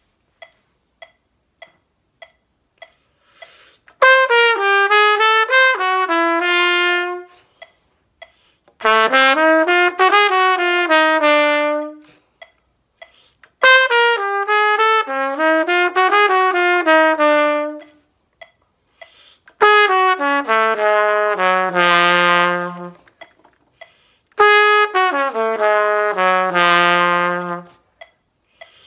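A metronome clicking about twice a second, then a trumpet over it playing five short jazz phrases, each falling to a held note. The phrases alter the ninth and fifth of a dominant seventh chord.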